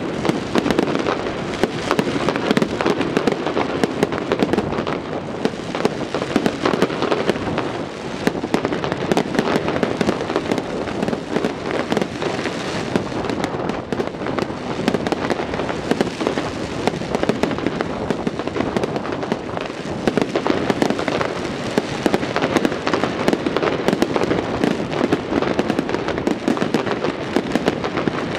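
Fireworks display, a dense, continuous barrage of bangs and crackling with no letup.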